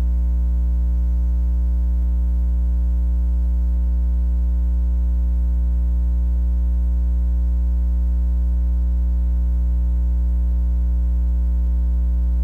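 Steady electrical mains hum, low and buzzing, with a ladder of higher steady tones above it and no change in level.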